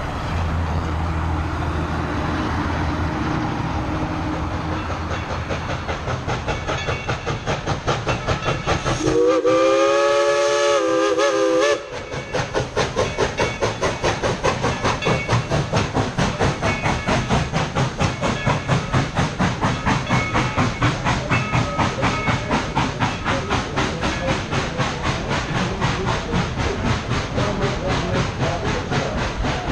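Dollywood Express narrow-gauge steam locomotive working past with its exhaust chuffing in an even rhythm. About nine seconds in it gives one long, roughly three-second blast on its steam whistle, several notes sounding together.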